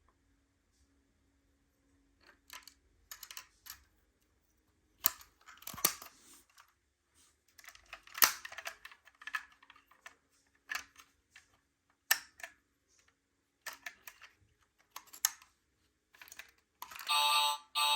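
Scattered light clicks, taps and rattles of a small toy miniature car and its parts being handled, in short irregular bursts. About a second before the end, a loud electronic siren-like tone with music starts.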